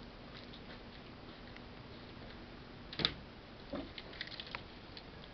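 Objects being handled on a lab bench: one knock about three seconds in, then a few light clicks and taps, over faint room noise.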